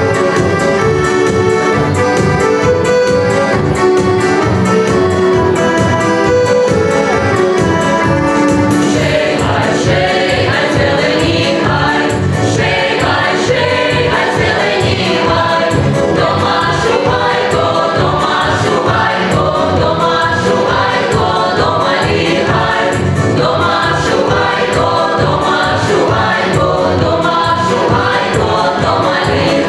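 Live folk music: a mixed choir of male and female voices sings with accordion accompaniment and a steady beat. About eight or nine seconds in, the voices enter after a short instrumental passage.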